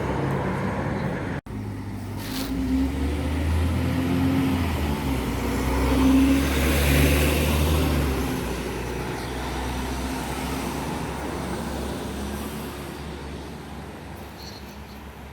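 A bus engine running as it passes close by over road traffic, growing louder to a peak about six to seven seconds in and then fading away. The sound cuts out for an instant about a second and a half in.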